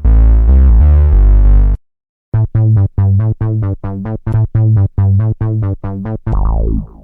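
Electronic synthesizer music: a sustained chord cuts off suddenly, then after a brief gap a run of short, rhythmic stabbed notes, about four a second, ending in a falling sweep that fades away.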